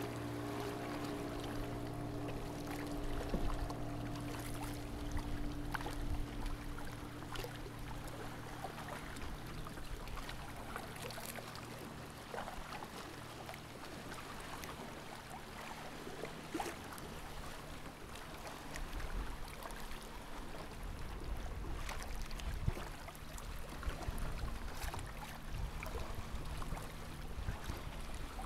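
Kayak paddle strokes and water splashing and lapping around a sea kayak, with scattered short splashes. A low steady hum with a few fixed tones sounds in the first several seconds and fades out.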